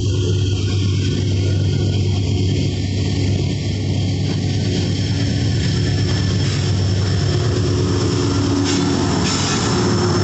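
Freight train of covered hopper cars rolling past close by: a steady, loud rumble of steel wheels on rail. Near the end a high-pitched wheel squeal joins in as a mid-train diesel locomotive comes alongside.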